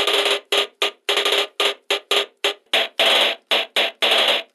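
Hit Stix 2 electronic air-drum toy playing its snare sample through its small clip-on amplifier: a quick, uneven run of harsh, hissy electronic hits, about three a second, each with a buzzing tone. A little over halfway through, the hits drop to a lower pitch as the tone switches from high to low.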